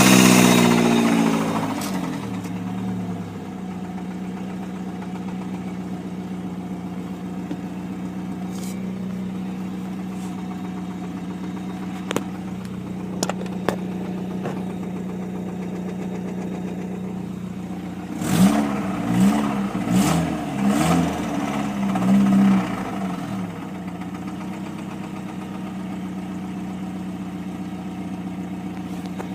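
1999 Chevy S10's 2.2-litre four-cylinder engine with a rod knock. Its revs fall back to idle at the start and it idles steadily, then the throttle is blipped four or five times about two-thirds of the way through before it settles back to idle.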